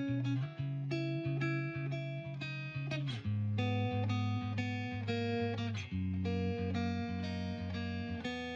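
Background music: plucked guitar with a steady bass line.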